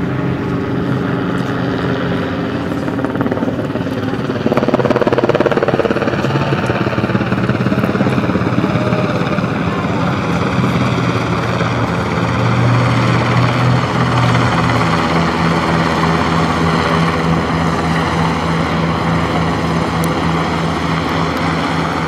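Helicopter flying over, its rotor and engine sound steady, a little louder about four seconds in.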